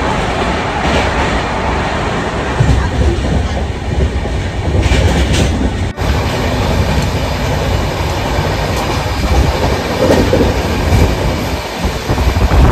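Passenger train running, heard from inside the carriage as a steady loud rumble.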